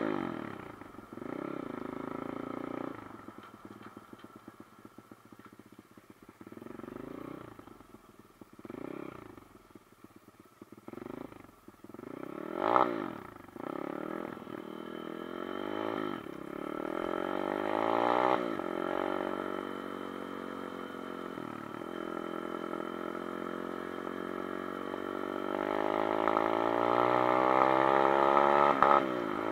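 Honda 125cc motorcycle engine being ridden, its pitch rising and falling again and again with throttle and gear changes. It runs steadier in the second half, then builds louder near the end.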